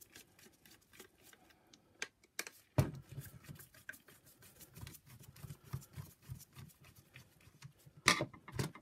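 Small clicks and creaks of a screwdriver turning out the screws that hold the motor of a Shark Rocket power nozzle in its plastic housing, with a sharp knock about three seconds in and a louder clatter near the end.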